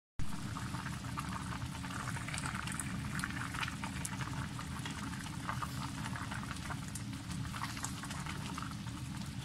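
Pot of chicken and vermicelli noodle soup at a full boil: steady bubbling with many small pops, over a steady low hum.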